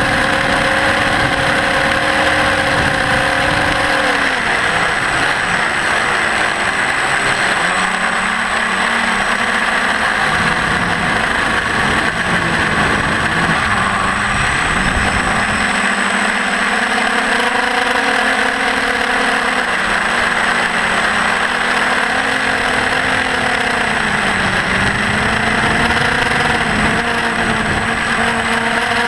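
Electric motor and propeller of a Parrot Disco fixed-wing FPV drone running, with a steady rush of noise. Its hum steps down in pitch about four seconds in, wavers up and down with the throttle, and climbs again near the end.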